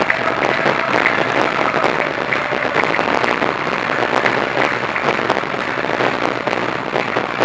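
Audience applauding steadily: a dense patter of many hands clapping, with no break.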